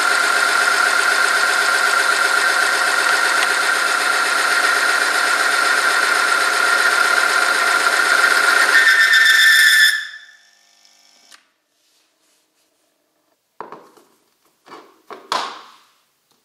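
Oil film strength testing machine running under load: its electric motor spins the test roller against the weighted sample in hot oil, making a loud, steady grinding whine with one strong high tone. About nine seconds in the tone rises, and about a second later the machine winds down and stops within half a second. A few brief faint knocks follow near the end.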